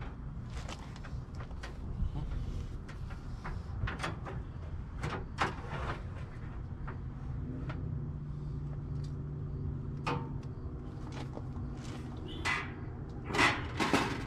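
Salmon pieces being laid on the wire racks of an electric smoker: scattered light clicks and taps of fish and fingers on the metal grates, with a louder metal clatter of tray or rack near the end.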